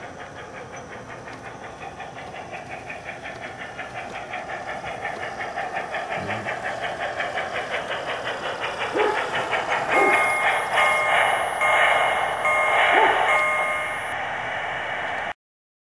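Digital steam sound from the Mylocosound card in a Piko G-scale 0-6-0 Dockside model locomotive: even chuffing at about four beats a second, growing louder as the engine comes closer. From about ten seconds in, a series of short whistle toots sounds over the chuffing. The sound cuts off abruptly near the end.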